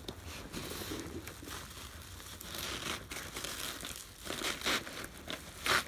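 Packaging crinkling and rustling as it is handled and pulled open to get the next boxed action figure out, with a louder crackle near the end.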